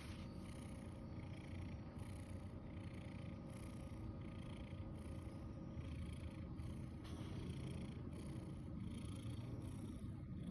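A sleeping cat snoring: a low steady rumble with a breathy swell about every three-quarters of a second.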